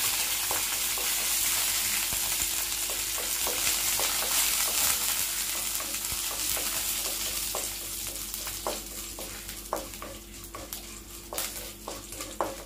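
Tempering sizzling in hot oil in a non-stick kadai: mustard seeds, urad dal, dried red chillies and curry leaves frying while a wooden spatula stirs them. The sizzle is loud at first and dies down over the second half, with scattered pops and crackles throughout.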